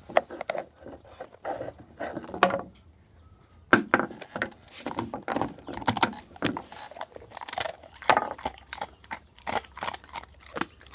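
Dog chewing a crunchy chicken neck treat: irregular sharp crunches and cracks of bone between its teeth, with a short pause about three seconds in.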